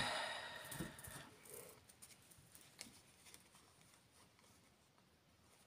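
A deck of tarot cards being handled: a short burst of card shuffling noise in the first second or so, a few light clicks, then faint handling that fades almost to silence.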